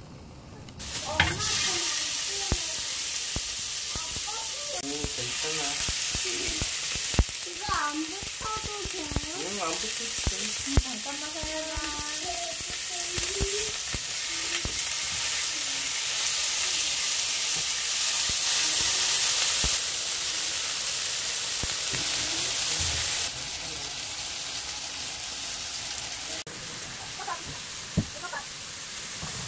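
Chunks of raw pork sizzling in a hot grill pan as they are laid in and turned with metal tongs, with scattered clicks of the tongs against the pan. The sizzle starts about a second in.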